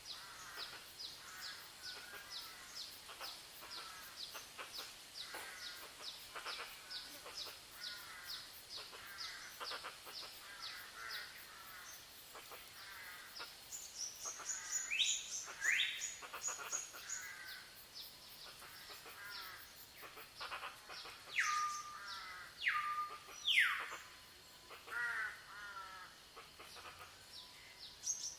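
A chorus of birds calling: fast repeated chirps throughout. About halfway there are two loud whistles that sweep upward, and near the end three loud whistles that slide down and then hold a steady note.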